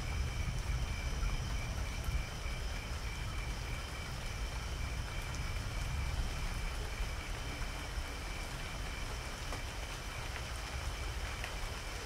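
Steady rain falling, with a low rumble of distant thunder dying away over the first few seconds. A high, pulsing chirping chorus carries on steadily behind the rain.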